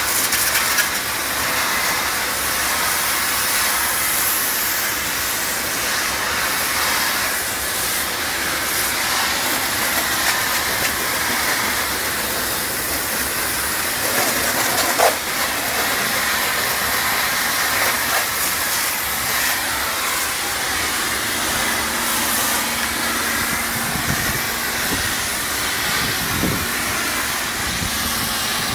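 Pressure washer spraying a high-pressure water jet onto a truck's tarpaulin cover: a steady hiss. Late on, a low steady hum joins it.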